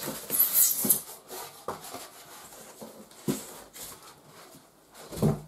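Polystyrene packing pieces rubbing and scraping against each other and the cardboard box as they are lifted out. There is a loud scratchy rub about half a second in, then a few light knocks.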